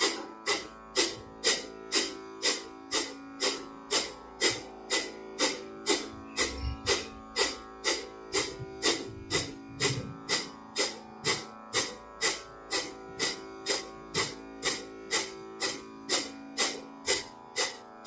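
Kapalabhati breathing: sharp, forceful exhalations through the nose, about two a second in a steady rhythm. Soft background music with held tones runs underneath.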